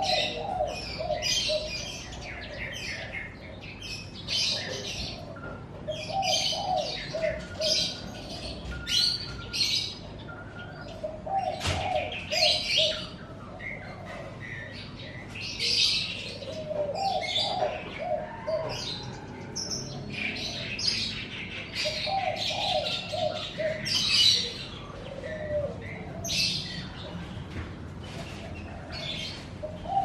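Caged songbirds chirping and singing in quick high bursts, with a lower warbling call returning every few seconds.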